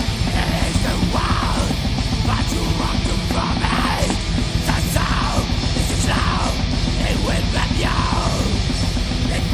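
Heavy metal song: a band playing loud and dense, with fast drumming, distorted guitars and harsh yelled vocals.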